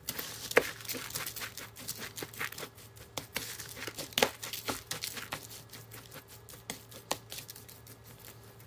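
Gloved hand mixing raw rice with ground meat and chopped vegetables in a plastic bowl: an irregular rustling and crackling of grains and glove, with sharp clicks scattered throughout.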